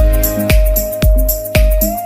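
Electronic background music with a deep kick-drum beat about twice a second, high cymbal hits and a long held tone.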